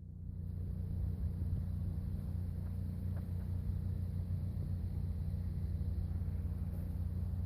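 Sprinter van driving: a steady low rumble of drivetrain and road noise that builds over the first second and then holds level.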